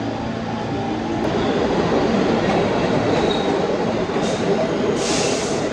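A subway train running through the station: a steady hum gives way about a second and a half in to a louder rumble of wheels on rail, with a brief thin squeal in the middle and a short, loud hiss near the end.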